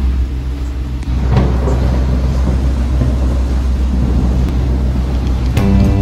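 A boat's engine running steadily, heard inside the cabin while the boat is under way, a low hum with noise over it. Music comes in near the end.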